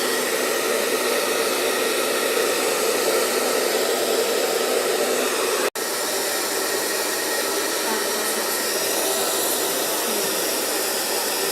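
Handheld hair dryer running steadily with an even blowing hiss. The sound cuts out for an instant about halfway through, then carries on unchanged.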